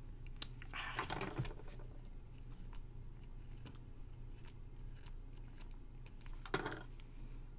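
Pen writing on paper: scattered light clicks and short scratches of the tip on the page, with a steady low hum underneath.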